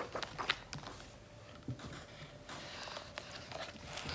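Paper page of a large paperback picture book being turned and smoothed flat by hand: soft rustling of paper with a few light taps and clicks.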